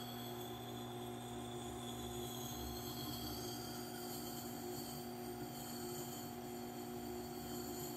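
Tormek T8 wet grinder running with a steady electric motor hum while a hatchet edge is held against its turning stone.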